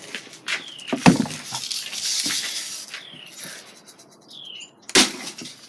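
A Red Ryder BB gun shot: a sharp crack about a second in as the BB strikes a soda bottle low down. It is followed by a hiss of carbonated soda spewing from the hole. Another sharp click comes near the end.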